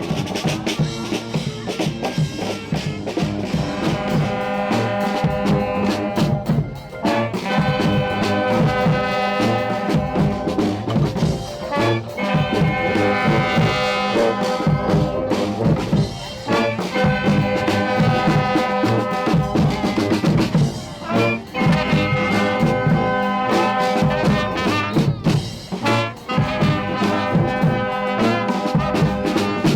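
Honk band, a street brass band, playing: trumpets and trombones sound held chords in phrases of a few seconds, with short breaks between them, over drums.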